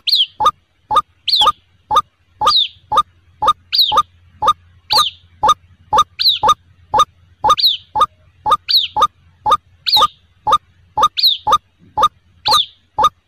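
White-breasted waterhen calling over and over in a steady rhythm. It gives short rising notes about twice a second, with a higher, falling note about every second and a quarter.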